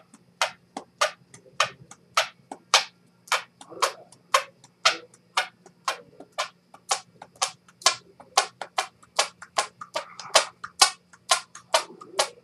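Hand noises: fingers squeezed between the thumb and palm of a cupped left hand, giving a fast train of sharp squeaky pops, roughly three to four a second.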